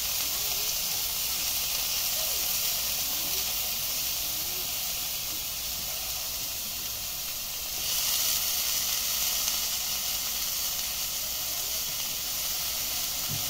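Palm weevil grubs frying in hot oil in a wok: a steady sizzle that grows louder about eight seconds in.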